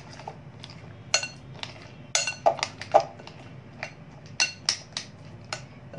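A metal spoon stirring in a glass bowl, clinking sharply and irregularly against the glass as it mixes condensed milk, butter and chocolate chips.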